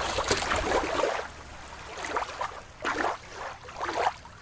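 Water sloshing and splashing in uneven surges. About a second in, the sound turns duller, with fewer high tones, and a few separate splashy surges follow.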